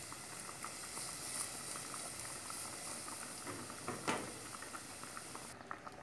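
Minced garlic sizzling and crackling in a little oil in a small pan, as it browns. There is a single louder knock about four seconds in, and the high hiss cuts off abruptly near the end.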